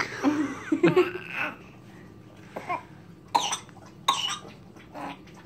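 Baby coughing while being spoon-fed puree: a longer burst of vocal sounds at the start, then several short coughs.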